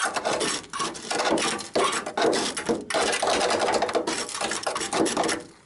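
Rough scraping and rubbing on rusty sheet metal, in quick uneven strokes, stopping shortly before the end.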